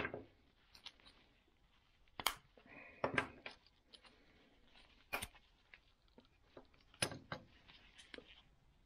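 A flexible bendy tripod being handled and its plastic legs pulled apart on a wooden board: a handful of sharp plastic clicks and light knocks, one every second or two, with faint rustling between.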